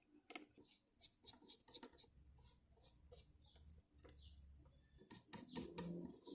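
Faint, irregular small clicks and taps of hands working on the opened Nvidia Shield TV's small plastic and metal parts during reassembly.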